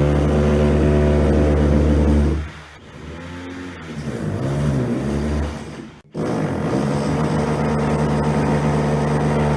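Electric power tools at work. A motor runs at a steady pitch, drops away about two and a half seconds in and wavers up and down in speed, cuts out briefly around six seconds, then starts again and runs steadily.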